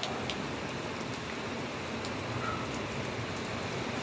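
Steady rain falling, with a few sharp drop ticks on a nearby surface, mostly in the first second or so.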